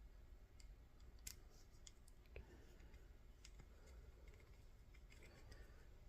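Faint, scattered clicks of screws and small lightsaber hilt parts being handled.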